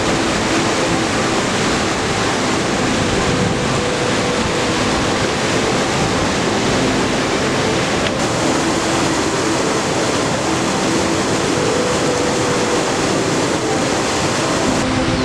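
Loud, steady rush of water, as from a mountain stream or waterfall.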